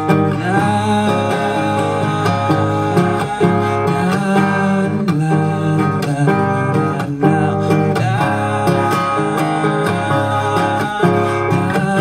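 Acoustic guitar strumming chords, a steady accompaniment with regular strokes.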